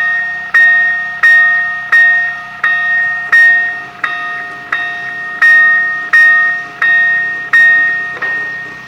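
Railroad level-crossing warning bell ringing in an even rhythm, about three strikes every two seconds, each strike ringing out before the next: the crossing alarm sounding while the crossing is active.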